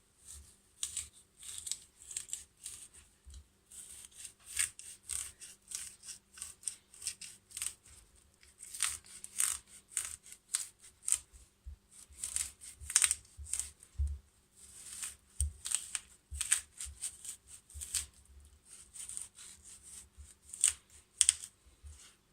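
Knife scraping and cutting into a black radish, hollowing out its flesh in short, irregular strokes, about one or two a second.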